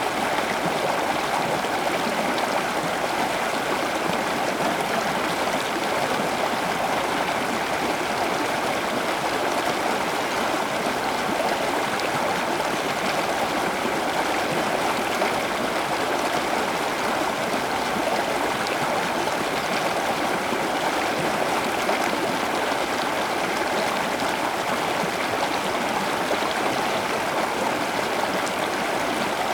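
Steady rushing of flowing water, like a stream, unchanging throughout, with no distinct bird calls standing out.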